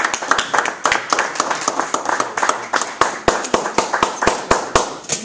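Audience applauding, with a few sharp, close hand claps standing out late on; the applause dies away near the end.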